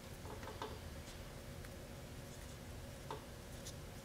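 A few faint, scattered clicks and light taps as hands work a small wooden stick against a cloth-wrapped carbon fiber landing gear leg, over a faint steady hum.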